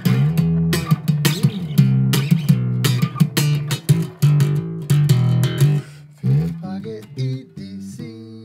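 Music: plucked guitar over a bass line, thinning out to a few scattered notes in the last couple of seconds.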